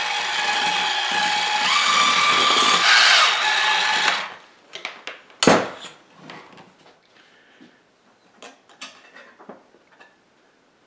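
Electric hand mixer running with its beaters in a stainless steel bowl, beating the creamed butter, sugar and egg mixture. It starts suddenly and stops about four seconds in. A single sharp knock follows, then a few light clicks and taps.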